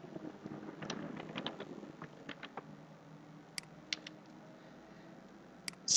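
Computer keyboard keystrokes and mouse clicks: a quick run of soft clicks about a second in, then a few single clicks later on.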